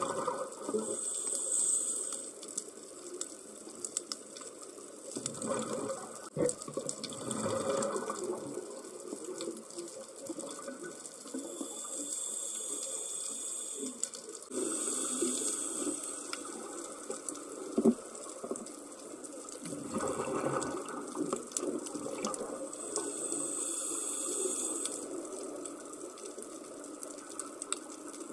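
Scuba diver breathing through a regulator underwater, heard through the camera housing: hissing inhalations alternate with rushing bursts of exhaled bubbles, repeating every few seconds.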